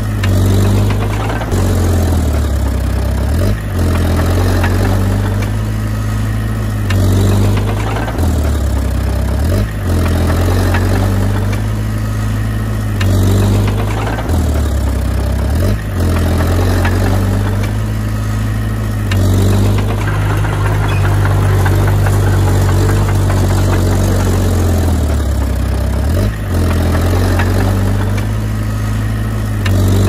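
Diesel engine of a Komatsu D20P crawler bulldozer running under changing load, its note dipping briefly and recovering every few seconds.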